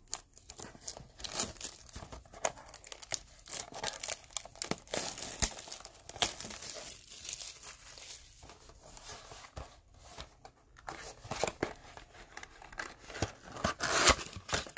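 Plastic shrink-wrap being torn off a cardboard trading-card box and crumpled, a dense run of crinkling and crackling, with a louder rustle near the end.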